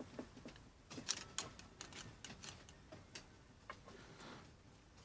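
Faint, irregular clicks and taps of the small metal parts of a Colt 1851 revolver being handled, lined up and a screw started into the frame.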